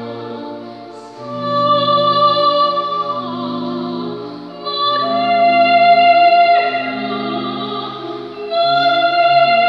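A woman sings a classical solo with vibrato over church organ accompaniment. The organ holds sustained chords that change every couple of seconds.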